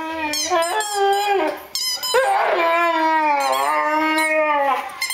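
Young dog 'talking': long, wavering howl-like moans, a drawn-out one at the start, a short yelp-like call about two seconds in, then an even longer moaning call that rises and falls. The dog is vocalising over its new chew bone.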